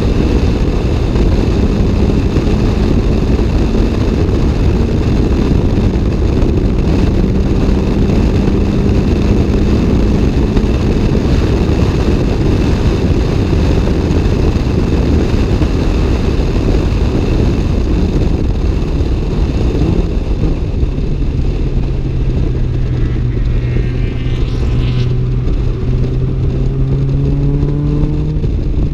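Toyota AE86's 4A-GE twin-cam four-cylinder engine running hard at a steady high pitch, heard from inside the cabin over heavy wind and road noise. About two-thirds of the way through, the engine note drops to a lower, steady pitch.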